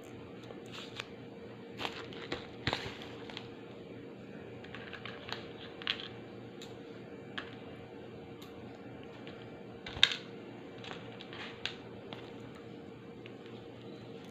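Small plastic clicks and taps as a cassette tape hub and its tape leader are handled and fitted together, scattered irregularly with the loudest click about ten seconds in, over a steady background hum.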